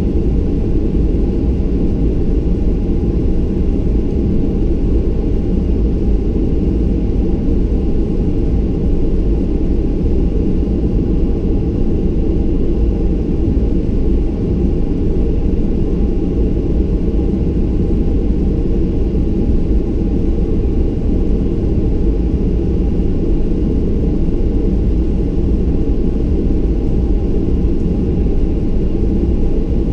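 Cabin noise inside a Boeing 737-800 taxiing with its CFM56-7B engines at low thrust: a steady low rumble with a faint steady whine above it.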